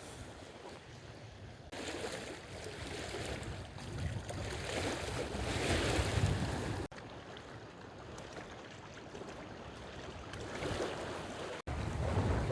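Wind gusting across the microphone over small waves lapping at a rocky lakeshore. It builds over the first six seconds or so, then drops suddenly about seven seconds in.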